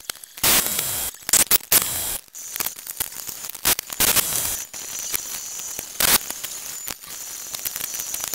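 Pneumatic air ratchet running in a series of short and longer bursts, hissing air as it stops and starts while driving bolts down.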